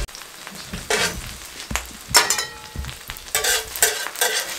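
Beaten egg frying in hot oil on a flat tawa griddle, sizzling, with several short scrapes and clicks of a metal spatula on the griddle.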